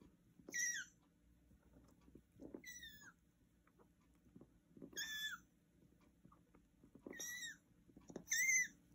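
Chihuahua drinking from a metal bowl, making a short high squeaky sound that falls in pitch at its end, five times about two seconds apart, with soft lapping between. The owner puts this noise on drinking down to his congestive heart failure.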